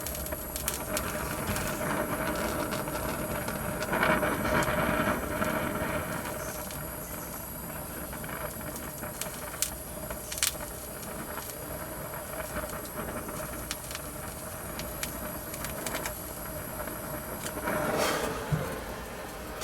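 Brazing torch flame hissing steadily while a leak on an R-410A heat pump's liquid line is repaired, with a few light clicks and knocks. The hiss swells louder about four seconds in and again near the end.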